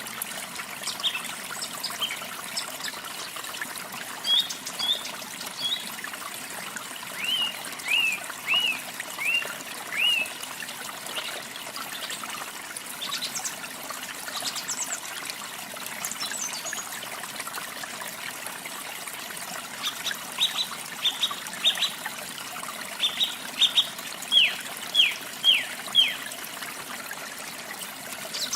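Steady rush of falling water from a small waterfall, with songbirds singing over it: a run of short falling whistles about a quarter of the way in, and another run of sharp notes then falling whistles in the last third.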